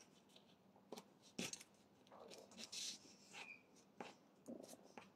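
Near silence, broken by a few faint ticks and soft rustles of fabric and card being pressed and smoothed by hand on a table.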